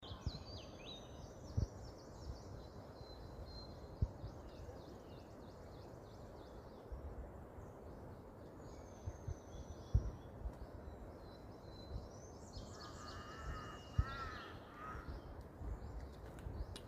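Morning birdsong: several small birds chirping and whistling high-pitched throughout, with a lower, wavering call between about 12 and 15 seconds in. A few sharp low thumps stand over a steady low background noise.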